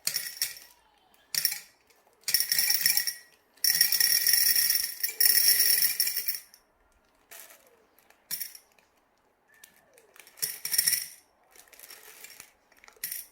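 Toy gumball machine rattling in repeated bursts as it is worked, the candies shaking and clattering inside with a bright, jingly ring. The longest burst comes about four to six seconds in; later ones are fainter.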